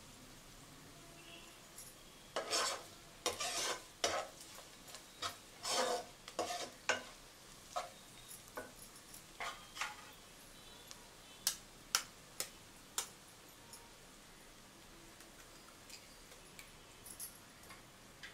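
A spatula stirring and scraping onions, green chillies and curry leaves frying in a non-stick pot, in irregular strokes over a faint sizzle. A few sharp knocks against the pot come in the middle, then the stirring stops.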